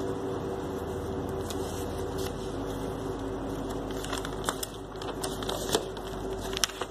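Paper notebook page being turned and handled, with crackling rustles and clicks from about four seconds in, over a steady background hum.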